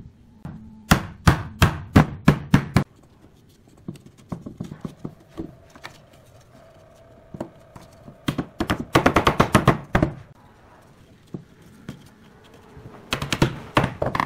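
Mallet knocking pine slats into slotted rails: a run of about six sharp knocks early on, a fast flurry of knocks midway, and a few more near the end, with wood sliding and scraping between.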